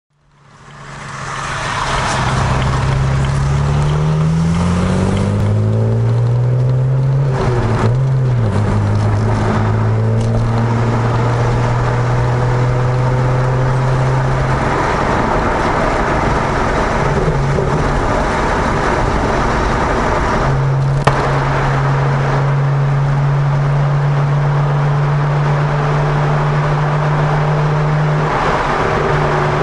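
BMW 335i's twin-turbo N54 straight-six through an Eisenmann race exhaust, heard from inside the car while driving. The note fades in, rises under acceleration for several seconds, drops at a gear change near eight seconds, then holds steady at cruise, with a stretch of lighter running in the middle before the steady note returns.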